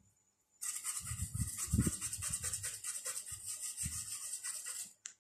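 Small brush scrubbing the circuit board of an Acer 4738 laptop motherboard in rapid back-and-forth strokes, a hissing scratch. It starts about half a second in and stops just before the end. The board is being cleaned of heavy dirt around the power IC.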